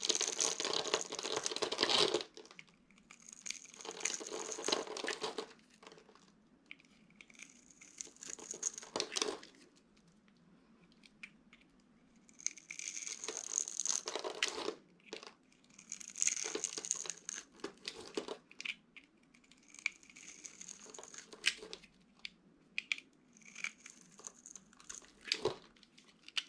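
Dry soap crunching and crumbling as it is crushed by hand, in about seven bursts of a second or two with short pauses between.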